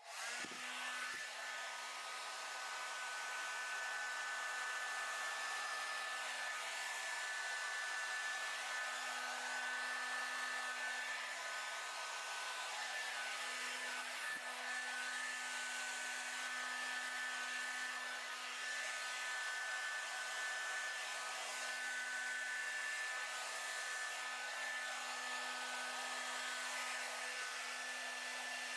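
Hair dryer running steadily on one setting, blowing wet acrylic paint across a canvas: an airy hiss with a steady motor whine.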